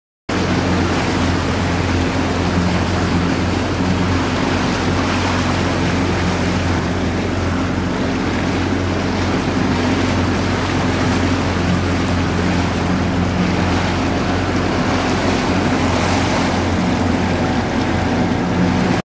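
Motorboat engine running at a steady speed, with water rushing past the hull and wind on the microphone.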